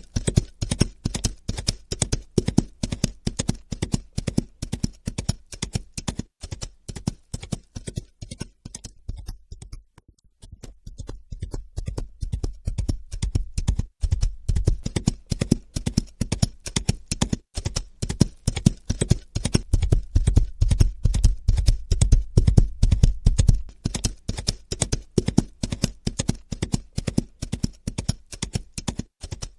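A fast, even run of sharp knocks, several a second. It fades away about ten seconds in, then builds back up, loudest a little past the middle.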